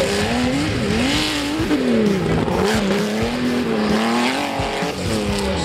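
Competition off-road jeep engine revving hard, its pitch rising and falling again and again as the throttle is worked.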